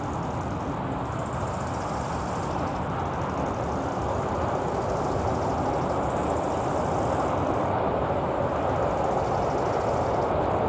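Level-crossing warning bell (classic mechanical bell on AŽD 71 crossing lights) ringing over the rumble of a train on the line, which grows steadily louder.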